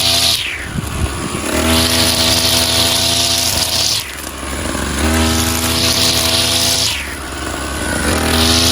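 Two-stroke brush cutter engine with a 45 mm cylinder, running and being throttled up to high revs about three times. Each high-rev stretch lasts two to three seconds and drops back briefly toward idle in between.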